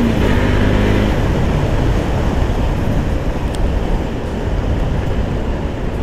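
Bajaj Pulsar NS200 motorcycle under way: its single-cylinder engine runs with a steady tone for about the first second, then is buried under a loud, rushing road and wind noise.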